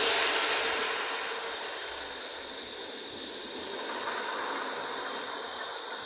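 A steady rushing, hiss-like noise that eases over the first couple of seconds and then holds steady.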